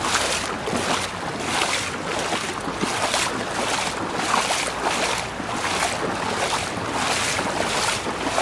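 Footsteps wading through shin-deep floodwater, a swishing splash with each stride about twice a second.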